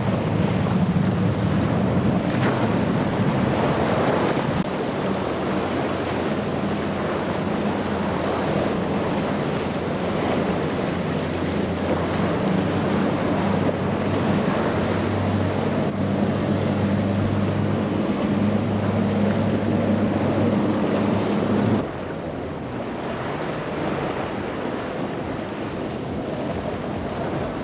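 Outboard-powered boats running at speed through choppy inlet water: a steady low engine drone under the rush of hull spray and waves, with wind on the microphone. The sound changes abruptly about 22 s in, to a Formula boat running on triple Mercury 450R outboards.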